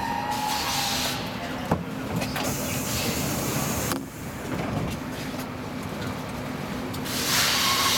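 Stockholm Metro C14 subway train rolling to a halt at a station platform, heard from inside the car: a steady hum with a fading electric whine, a single sharp clunk about two seconds in, and a rush of hiss near the end.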